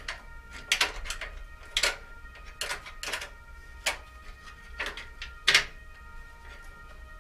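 Wrench clinking and clacking on the rear wheel fittings of a Dutch bike: irregular sharp metal clicks, about one or two a second, the loudest about five and a half seconds in.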